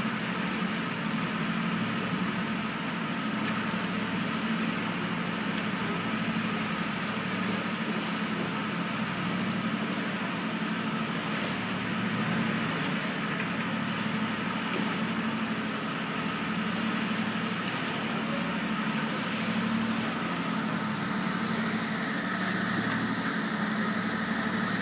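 Steady drone of the Max Mols catamaran ferry's engines and machinery, with several steady hum tones and no break. A higher whine joins about 22 seconds in.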